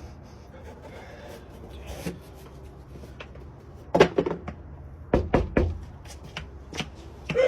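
Several sharp knocks over a low steady background: a cluster about four seconds in, another about a second later, and one more near the end.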